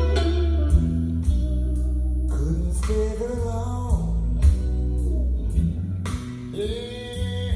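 A vinyl record playing on the MAG-LEV ML1 turntable through stereo loudspeakers: a song with a singing voice, guitar and a heavy bass line.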